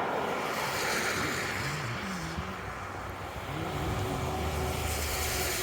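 Road traffic: cars passing on the road, a steady rushing noise of tyres and engines, with a low engine hum coming in about four and a half seconds in.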